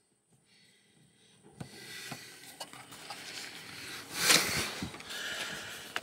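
Rustling and rubbing handling noise as the camera is moved about. There is a louder rush of noise about four seconds in, and the first second and a half is near silence.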